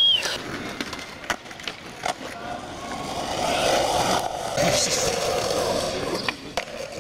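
Skateboard wheels rolling over asphalt and concrete with a steady rumble that swells about midway, broken by several sharp clacks of the board. A short high squeal right at the start.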